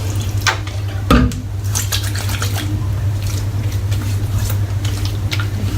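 Water running steadily from a tap into a sink, with a few brief splashes.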